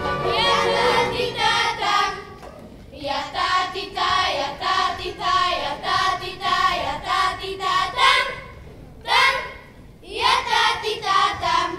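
A group of boys singing a folk song in short phrases with brief pauses between them. The band's accompaniment dies away about two seconds in, and the singing goes on unaccompanied.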